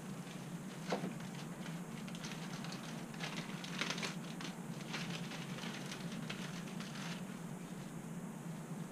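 Clear plastic packaging rustling and crinkling as it is handled, with one sharp knock about a second in, over a steady low hum.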